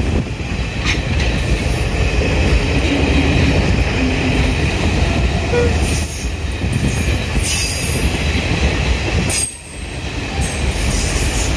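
Class S11 passenger train of ICF coaches rolling past close by, a steady heavy rumble of wheels on the rails. Brief high-pitched wheel screeches come through a few times in the second half, and the din dips for a moment near the end.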